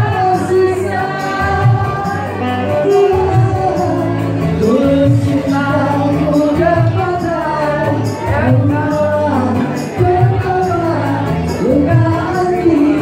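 Women singing a pop song through handheld microphones and a PA over amplified backing music with a steady beat.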